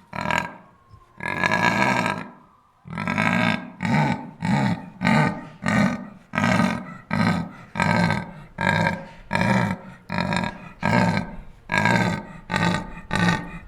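Lion roaring: one long moaning roar, then a steady series of short grunts, about one and a half a second.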